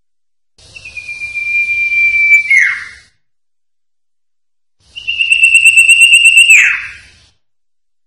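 Common iora (cipoh) singing two long, steady whistled notes, each about two and a half seconds, ending in a sharp drop in pitch. The second note is a little higher and flutters rapidly.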